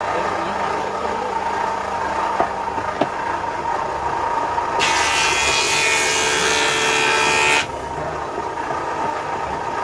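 Old imported table saw running with its blade spinning free, a steady motor hum. A louder hissing whine comes in about five seconds in, lasts about three seconds and cuts off suddenly.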